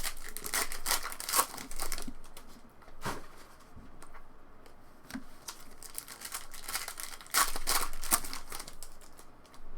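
Foil trading-card pack wrappers crinkling and tearing as packs are opened and handled, in rustling spells with a quieter stretch in the middle.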